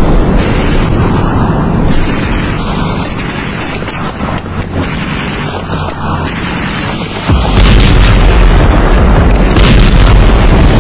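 Loud, heavy noise from a T-80BV tank moving along a road. About seven seconds in it jumps suddenly louder and deeper as the tank's 125 mm main gun fires.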